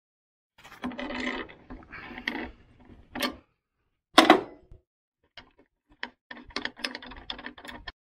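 Socket ratchet wrench clicking as a blade-guide bolt is turned, in runs of rapid clicks, with one louder metallic knock a little past the midpoint.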